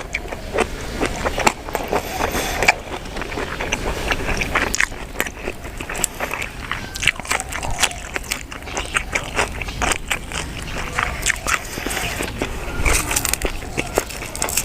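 Close-miked chewing of spicy minced buffalo-meat laab: a dense, irregular run of wet mouth clicks and crunches.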